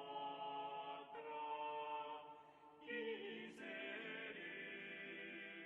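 Quiet background music of slow, sustained chords that change about every one to two seconds.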